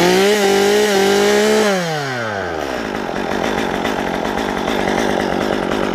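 Two-stroke chainsaw revved hard, held at high revs for about a second and a half, then falling off as the throttle is released, followed by a rough, unpitched rattle until near the end.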